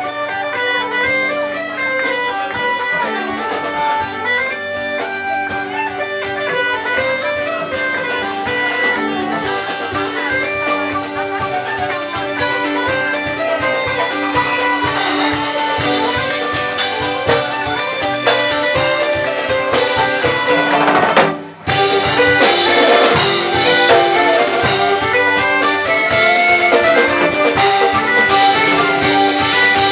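Instrumental background music with plucked-string notes and a steady beat. It breaks off for a moment about two-thirds of the way through, then carries on.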